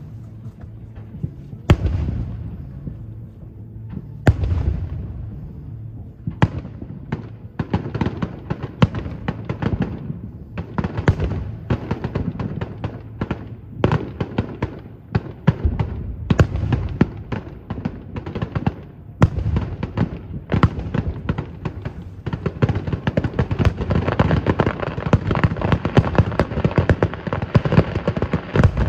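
Aerial fireworks bursting. A few separate booms come in the first seconds, then rapid bangs and crackling build up into a dense, almost continuous barrage near the end.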